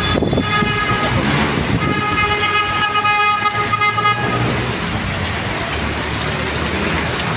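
A vehicle horn honks twice: a short blast at the start, then a longer steady blast of about two seconds. Underneath are heavy rain and street traffic noise.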